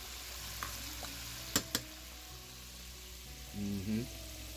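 Beef ribs deep-frying in vegetable oil, a steady sizzle. Two sharp clicks come about a second and a half in.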